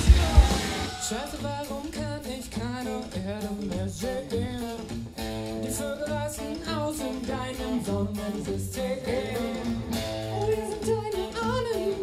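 Live rock band playing: electric guitar, bass guitar and drum kit, with a man singing. A loud full-band passage drops away about half a second in to a quieter, sung verse over a steady pulsing bass.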